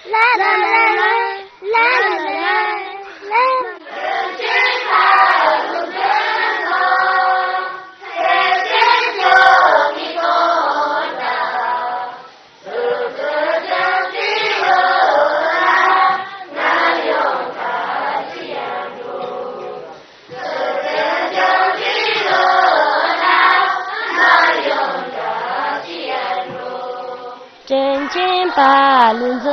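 A group of children singing their school lessons aloud, a chanted recitation in phrases with short breaks between them.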